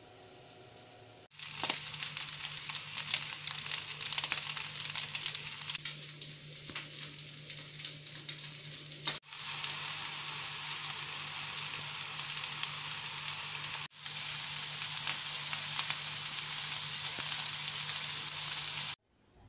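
Rice, lamb and vegetables sizzling and crackling in a hot wok as they are stir-fried with a wooden spoon, with a steady dense frying noise full of small pops. It starts about a second in and breaks off briefly twice.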